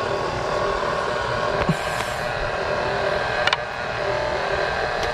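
KitchenAid stand mixer's motor running steadily, driving its meat grinder attachment as it grinds chuck eye steak. A couple of brief clicks, about a second and a half and three and a half seconds in.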